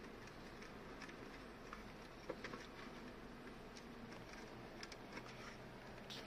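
Near silence: faint steady room hiss with a few soft ticks as fingers handle an aluminium case.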